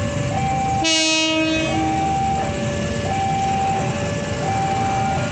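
Diesel locomotive horn sounding one blast of about a second and a half, starting about a second in. Under it, a level crossing warning alarm beeps on, its electronic tone flipping between a higher and a lower note about every 0.7 s.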